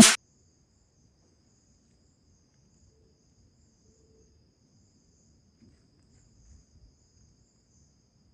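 Faint, steady high-pitched chirring of insects, after a burst of electronic music that cuts off right at the start.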